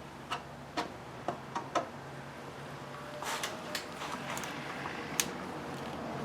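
A series of light clicks as small objects are handled on a workbench: five quick ticks in the first two seconds, then softer rustling and tapping, and one sharp tick a little after the middle.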